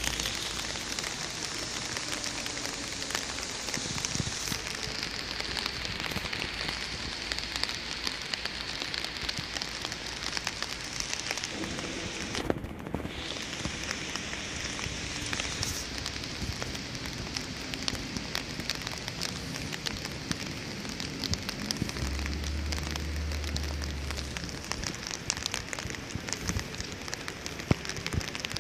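Rain falling steadily: a dense hiss of drops with many small crackling ticks, broken briefly about twelve seconds in.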